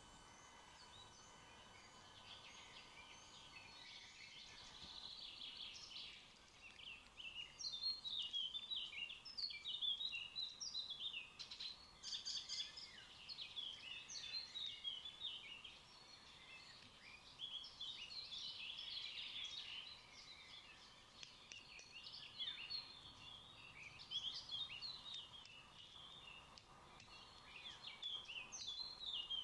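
Birds chirping and twittering outdoors, many short quick notes overlapping, thin at first and busier from a few seconds in.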